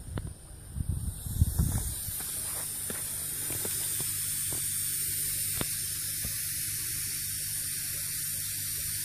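Steady hiss of air flowing through a pond aeration system's air manifold and airline tubing, over a faint low hum. A few low thumps come in the first two seconds before the hiss settles.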